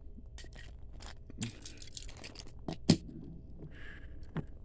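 Diecast NASCAR Ford Mustang models being handled and set down on a hard surface: a few light clicks and faint scrapes, the sharpest click about three seconds in.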